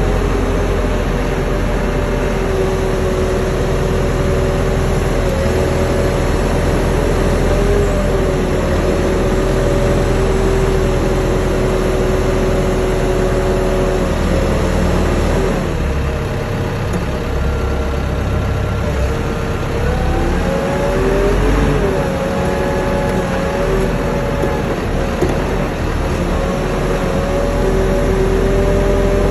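Telehandler's engine running steadily under load, with a steady whine over it that wavers in pitch about twenty seconds in as the machine works.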